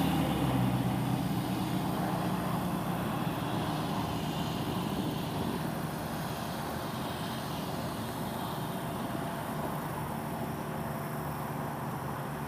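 2014 Ford F350 Super Duty's 6.7L Power Stroke V8 diesel engine idling steadily, a little louder in the first second or so before settling.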